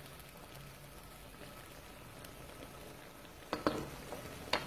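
Swordfish and zucchini sautéing in a nonstick pan, a soft even sizzle with small crackles, as a wooden spoon stirs them. Two sharp knocks come near the end, the spoon against the pan.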